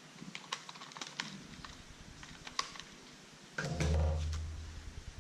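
Packaging and plastic accessories being handled: a scatter of light clicks and taps, then a louder, low, humming thump about three and a half seconds in that fades away.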